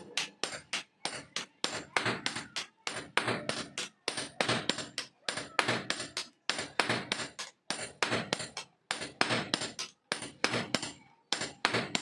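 Blacksmith's hammer striking metal in a fast steady rhythm, about three blows a second in runs with short pauses, each blow with a light metallic ring: forging the sickle blade.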